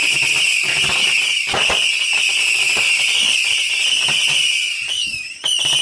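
A whistling firework shrieking on a steady high pitch over crackling. About five seconds in the whistle falters, then comes back wavering up and down.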